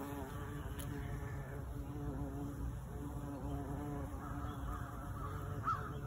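Bumblebee buzzing in flight, a steady droning hum that wavers slightly in pitch and briefly fades before returning. A short, sharper, higher sound comes near the end.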